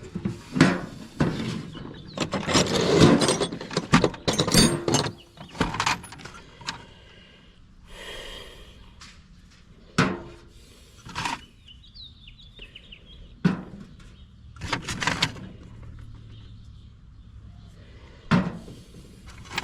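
Loose sockets and hand tools being rummaged through and set down: irregular clanks and knocks, busiest from about two to five seconds in, then scattered single knocks.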